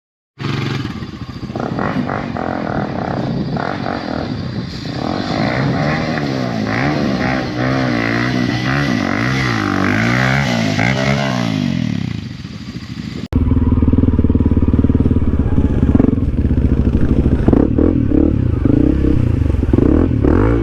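Honda CRF300L's single-cylinder four-stroke engine under a rider off-road, its pitch rising and falling again and again as the throttle is worked. After a sudden cut about 13 seconds in it runs louder and steadier.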